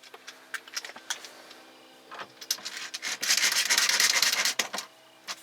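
A screw being driven into the plastic dash trim with a hand screwdriver. A few light clicks and taps come first, then about a second and a half of rapid rasping clicks as the screw turns in.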